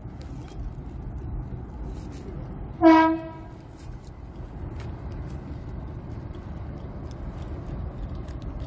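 Train horn giving one short toot of about half a second, about three seconds in, over a steady low rumble.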